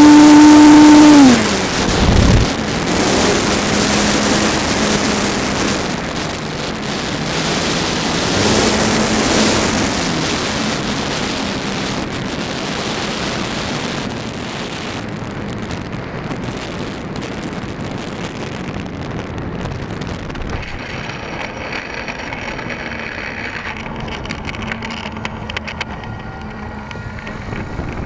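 Electric motor and propeller of an RC aerobatic plane whining at high throttle, cut back sharply about a second in. Then mostly wind rushing over the onboard microphone with a low motor hum underneath, growing quieter through the second half as the plane slows and comes down onto the runway.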